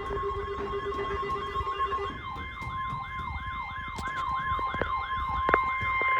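Weather-radio emergency alert sounding: a steady alarm tone near 1 kHz (the 1050 Hz warning alarm) with a siren-like sweep repeating about three times a second over it. A lower steady tone drops out about two seconds in and a higher one comes in.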